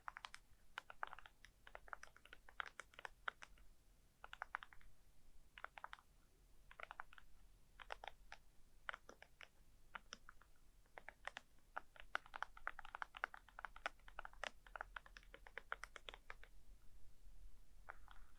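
Gentle ASMR tapping and scratching on a small object, in quick clusters of light clicks separated by short pauses.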